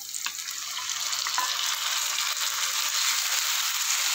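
Chopped tomatoes hitting onions frying in hot oil in a pan and being stirred in with a wooden spatula. A hissing sizzle builds over the first second or two and then holds steady, with a few light clicks near the start.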